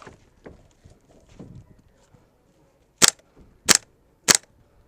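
Three single shots from a gas blowback airsoft gun, sharp cracks a little over half a second apart, starting about three seconds in.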